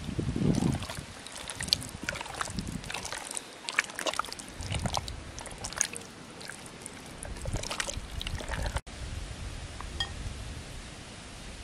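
Hands squishing and tossing pieces of trout in a thick wet marinade in a glass bowl: irregular squelches and sticky clicks of fish against glass. After a short break a little before the end, only a steady outdoor hush of breeze and leaves remains.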